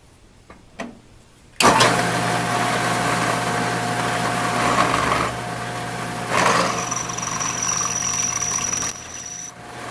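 Drill press switched on about a second and a half in, its motor running with a steady hum while a twist drill bores a counterbore hole into a 6061 aluminium plate. In the second half a thin high whine rises above the hum as the bit cuts.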